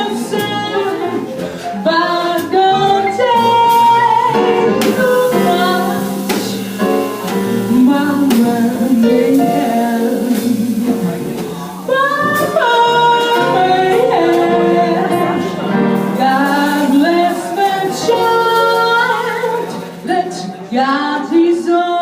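A song: a woman singing held, gliding melody lines over instrumental accompaniment.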